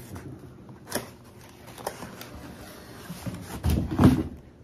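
Cardboard boxes and packaging being handled during unboxing: scattered rustles and taps, with a sharp click about a second in and a louder rustling knock near the end.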